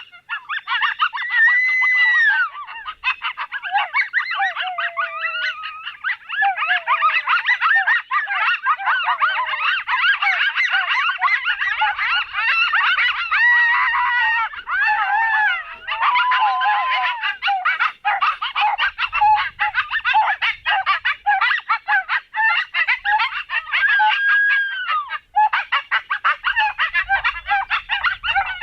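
A chorus of coyotes yipping, barking and howling in a dense, continuous jumble of quick yelps, with a few longer falling howls woven through.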